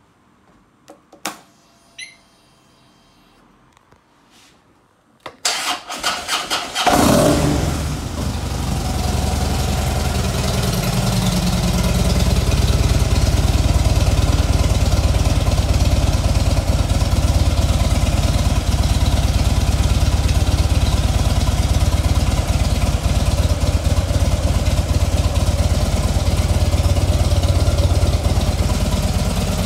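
Harley-Davidson Fat Bob's 1584 cc V-twin with Screaming Eagle exhausts being started: two short clicks, then about five seconds in the starter cranks for under two seconds, the engine catches and settles into a steady idle.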